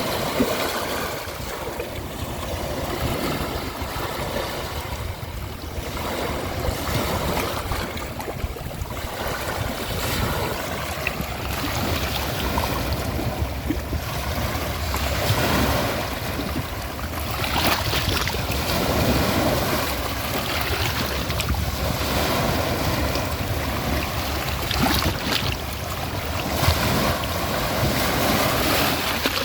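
Ocean waves washing onto a shore, a steady hiss of surf that swells and eases every few seconds, with a low rumble of wind on the microphone.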